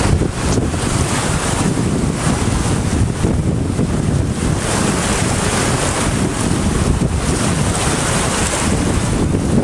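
Steady rush of a swollen, fast-flowing river in flood, churning with whitewater, mixed with wind buffeting the microphone.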